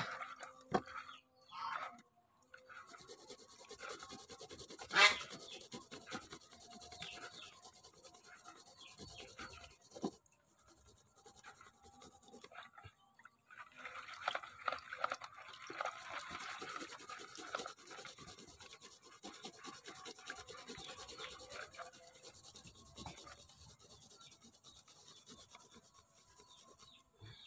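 Onion being rubbed on a small metal hand grater: a soft, rapid rasping made of many quick strokes, a little louder in the middle, with one sharp knock about five seconds in.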